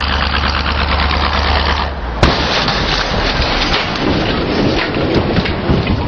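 A car's engine hum under rough, wind-like noise, then one sharp bang about two seconds in as the car hits a burning refrigerator at speed. Rough noise with scattered crackles carries on after the impact.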